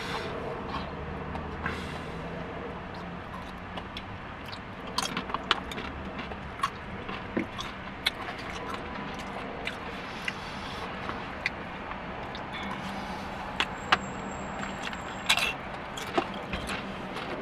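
Eating from a takeout burrito bowl: chewing, with scattered sharp clicks and taps from the bowl and utensil, over a steady low hum inside the car.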